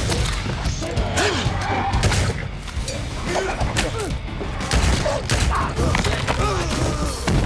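Action-movie fight sound mix: repeated gunshots and sharp impacts over a bass-heavy film score, with strained voices crying out between the shots.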